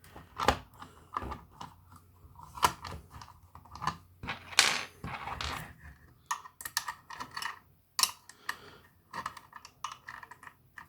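Plastic case of an 18 V power-tool battery pack being opened and handled: irregular clicks, taps and short scrapes of plastic.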